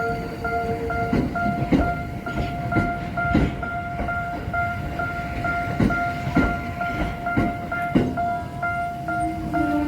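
Level-crossing warning bell ringing in a steady repeating pattern while a Tokyo Metro Ginza Line train's wheels knock over the rail joints as it rolls through the crossing.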